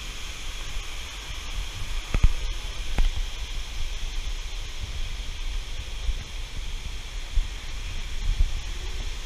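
Steady rushing noise of a cave's ambience, with low thumps from footsteps jostling a body-worn camera and two sharp clicks about two and three seconds in.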